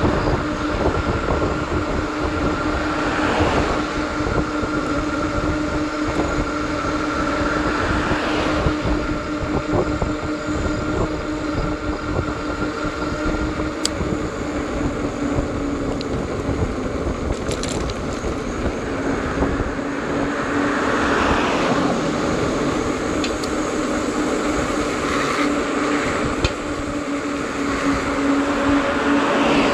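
Folding electric bike with a 750 W motor and 4-inch fat tyres riding at speed: a steady whine that shifts pitch slightly a few times, over wind rumbling on the microphone.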